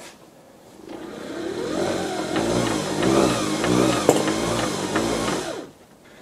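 Makita cordless drill running off a hand-cranked generator: its motor whirs up about a second in, the pitch rising and falling with the uneven cranking, then stops suddenly near the end.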